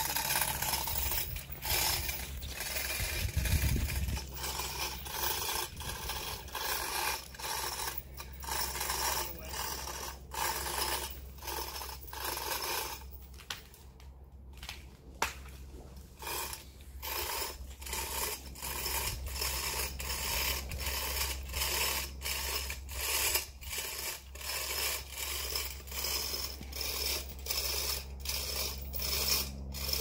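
Hand ratchet being worked stroke by stroke to tighten a line pulling on the tree: a steady run of clicks about twice a second, with a short pause around the middle.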